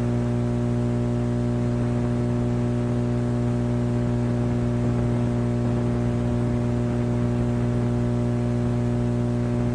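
Steady electrical hum and buzz in the broadcast audio, a low drone with many even overtones over a constant hiss, unchanging throughout.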